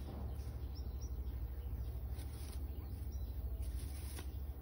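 Dry hay rustling softly as a Serama hen picks at and tosses nest straw, a couple of brief rustles around two and four seconds in. Faint high bird chirps sound over a steady low hum.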